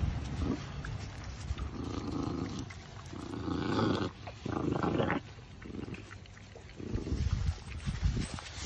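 Puppies growling as they feed on a raw whole chicken, food-guarding growls against one another. A run of short growls, the loudest three in the middle.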